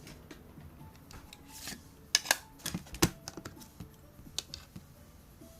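Irregular light clicks and taps of small repair tools on an opened smartphone. A few sharper clicks come about two and three seconds in, and another near the end.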